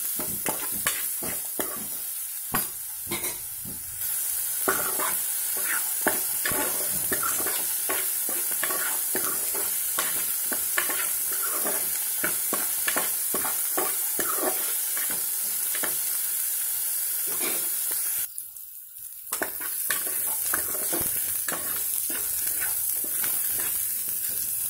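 Chopped onions sizzling as they fry in hot oil in a metal pot, with a spatula scraping and knocking against the pot as they are stirred. The sizzle drops away briefly about three-quarters of the way through, then carries on.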